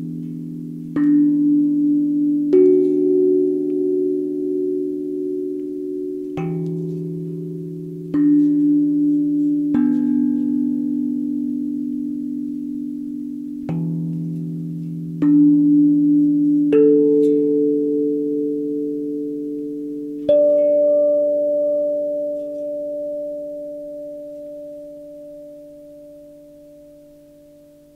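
Steel tongue drum struck with a mallet, one note at a time, slowly, about nine strikes a second or two apart, each note ringing on long and overlapping the next. The last note, about twenty seconds in, is left to ring and fade away.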